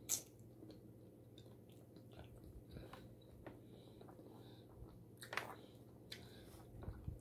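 Quiet close-up chewing and mouth sounds of a person eating, with a few sharp clicks of a metal fork, the loudest just after the start and another about five seconds in.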